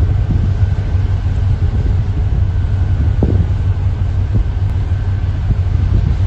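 Steady low rumble of a ship's engine, heard on deck of the vessel, with a faint steady whine above it and a couple of soft knocks, one about three seconds in.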